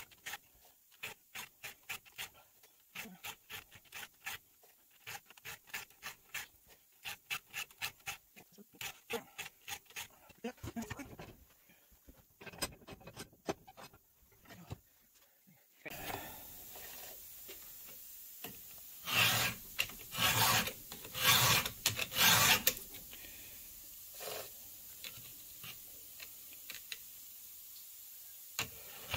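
A Stihl 2-in-1 Easy File, a round file and a depth-gauge file together, rasping back and forth across the cutters of a chainsaw chain in quick, even strokes of about two a second. After about ten seconds the filing gives way to a few seconds of scattered handling sounds. From about 16 s it resumes over a louder background hiss, with the loudest strokes coming around 19 to 23 seconds.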